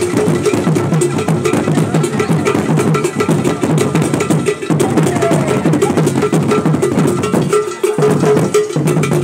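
Loud live percussion music: a metal bell struck in a fast, steady rhythm over drums, with a short break in the low drum notes about eight seconds in.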